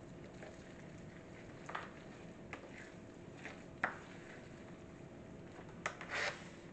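Kitchen handling sounds while baking cookies: a few scattered light clicks and taps, then a brief louder scrape near the end, over a faint steady hum.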